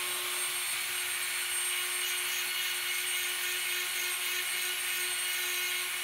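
A steady whirring hiss with a constant hum under it, like a small motor running, unchanging throughout.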